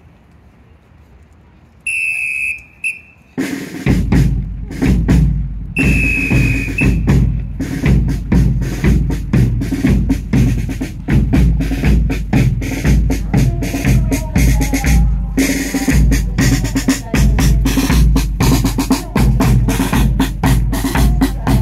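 A military band's marching drum line. After a couple of seconds of quiet, a drum major's whistle blows, and bass drum, snare drums and cymbals strike up a steady marching cadence, with another whistle blast a few seconds in.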